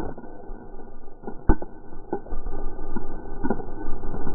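Slowed-down tannerite explosion: the blast's tail stretches into a deep, drawn-out rumble, broken by scattered low knocks, one sharp one about a second and a half in and more later.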